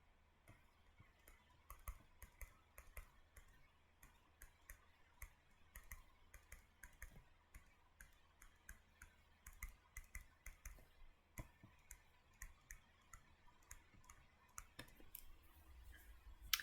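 Faint, irregular clicks and taps of a stylus on a tablet screen while writing, over a quiet room.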